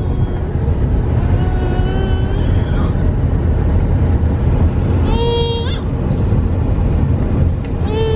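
Toddler crying in a car seat: long wails about a second and a half in and again around five seconds, the second one rising at its end, with another starting near the end, over the steady low rumble of the car cabin.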